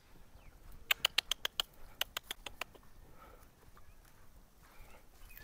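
A quick run of sharp clicks, about a dozen in under two seconds, starting about a second in, then only faint, short sounds.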